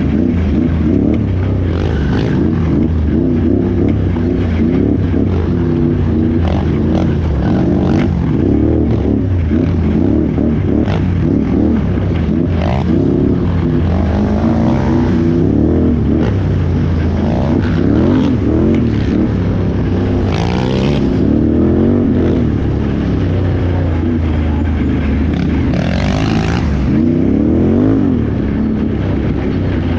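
Can-Am Renegade XXC 1000R ATV's V-twin engine revving up and backing off over and over under hard off-road riding, with short scrapes and knocks scattered throughout.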